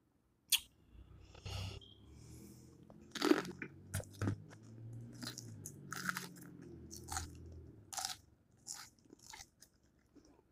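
A person eating, chewing and biting food with irregular crisp crunches over soft, wet mouth sounds.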